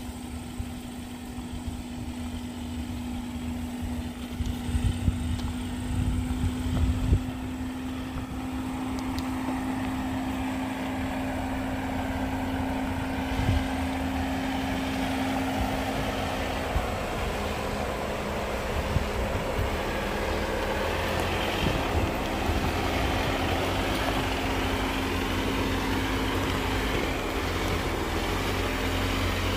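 Vehicle engine running at low speed on a dirt track, a steady drone that grows slowly louder, with a few low thumps about five to seven seconds in.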